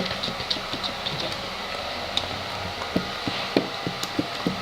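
Homemade slime being squeezed and worked by hand, giving irregular small pops and clicks that come more often from about three seconds in, over a steady background hiss.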